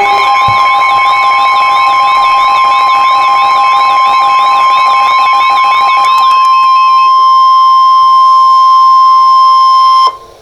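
Emergency alert attention tones: a loud steady alarm tone with a second steady tone and a fast high warbling tone over it, about three wobbles a second. About six seconds in the warble and the lower tone stop, leaving the single steady tone, which cuts off abruptly just before the end.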